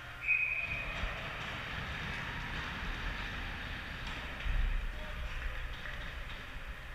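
Ice hockey rink noise: skates scraping and the rumble of the arena, with a short high whistle blast just after the start and a dull thump about four and a half seconds in.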